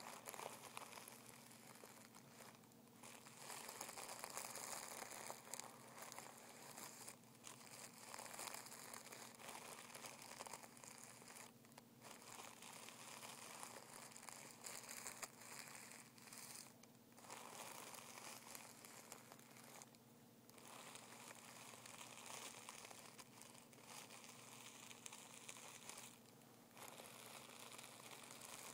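Fingers rubbing and crinkling a sheet of tissue paper: faint, continuous papery crackling, broken by a few brief pauses.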